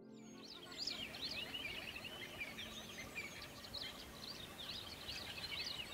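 Many small birds chirping at once: a faint, dense chorus of short high chirps and trills.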